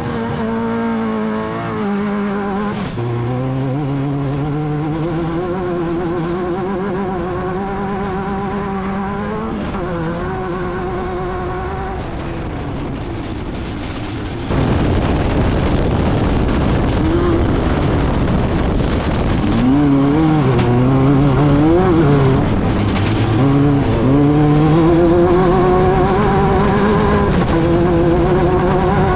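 Off-road race vehicle's engine running hard at speed. In the first three seconds its pitch climbs and then drops, as with a gear change, before holding fairly steady. About halfway through the sound jumps abruptly louder and rougher, with the revs rising and falling repeatedly.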